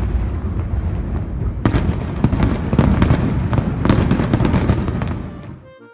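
Fireworks going off: a continuous low rumble with sharp cracks about one and a half seconds in and a quick run of crackles around four seconds. They fade out near the end, where background music comes in.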